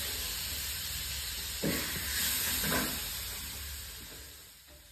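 Steady sizzling hiss of cooking oil frying, with two faint short sounds in the middle, fading out near the end.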